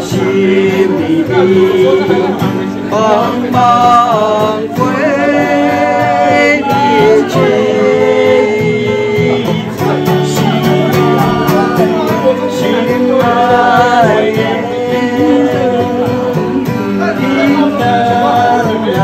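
Music: a song with a singer over instrumental backing.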